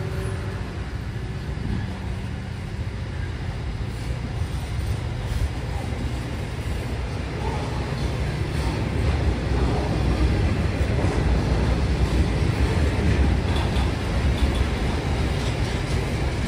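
Container wagons of a freight train rolling past at speed: a steady rumble of steel wheels on rail that grows a little louder toward the end.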